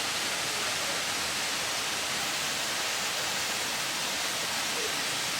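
Steady rush of a mountain valley stream, an even hiss with nothing else standing out.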